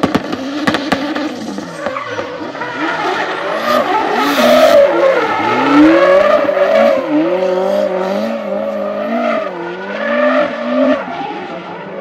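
Turbocharged Ford Sierra Cosworth engine revving up and down repeatedly, with a few sharp anti-lag cracks in the first second. Tyres squeal under the car for a stretch around the middle.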